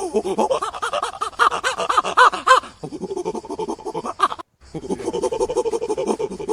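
Farm animals calling: many short calls overlapping in quick succession, broken by a sudden brief gap about four and a half seconds in.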